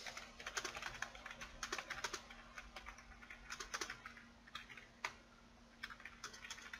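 Typing on a computer keyboard: quick, irregular keystrokes, with a short pause about five seconds in.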